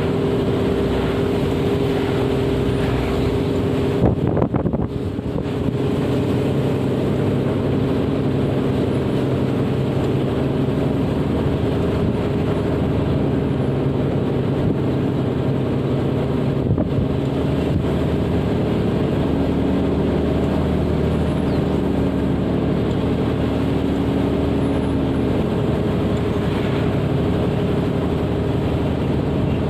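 A vehicle's engine running steadily while under way, a constant hum with a short clatter about four seconds in.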